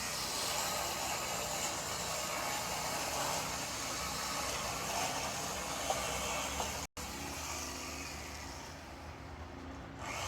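Chainsaw engine running steadily, fairly faint. The sound cuts out for an instant about seven seconds in.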